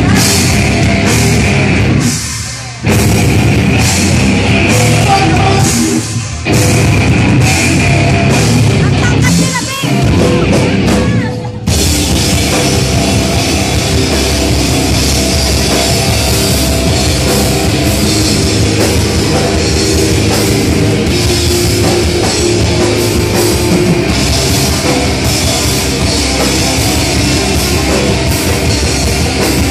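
Live heavy metal band playing loudly: distorted electric guitars and a drum kit. For the first twelve seconds the band plays in stop-start hits with short breaks, then plays without breaks.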